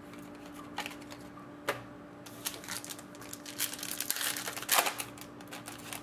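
Trading cards clicking lightly against each other as they are handled, then a foil card-pack wrapper crinkling as it is torn open, loudest a little past four seconds in.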